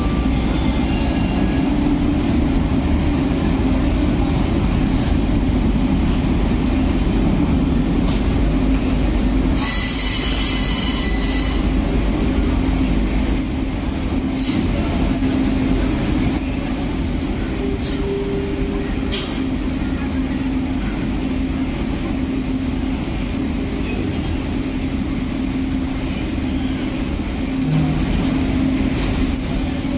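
WDM3D diesel locomotive, an ALCO-type 16-cylinder diesel, pulling a staff car and a track recording car slowly past into the station: steady engine and wheel rumble as the coaches roll by. A brief high squeal from the wheels comes about ten seconds in.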